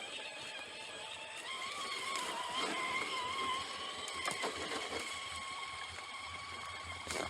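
Electric RC scale crawler running, its motor and gears giving a steady high whine that wavers slightly in pitch with the throttle, with a few short clicks and knocks.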